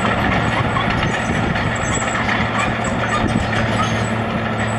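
Heavy diesel vehicle engine running steadily, with a low hum and a wash of road-traffic noise.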